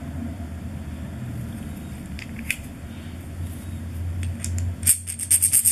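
Worn steel lug nut with stripped inner threads clicking against a threaded wheel stud as it is handled. There are a few faint clicks, then a quick run of sharp metallic clicks near the end, over a steady low hum.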